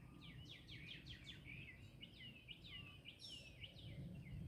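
Faint birdsong: a rapid series of short, downward-sweeping chirps repeating several times a second, over low background noise.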